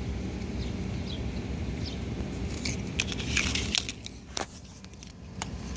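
Paper sticker cards being shuffled and handled by hand, with short crinkles and taps clustered about three seconds in, over a low steady outdoor rumble.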